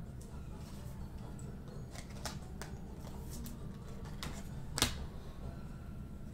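Panini Contenders football cards being handled as packs are gone through: a string of light clicks and snaps, the sharpest about five seconds in, over a steady low hum.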